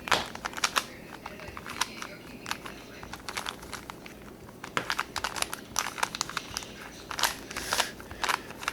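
3x3 Rubik's Cube being scrambled by hand: irregular bursts of plastic clicks and clacks as the layers are twisted quickly.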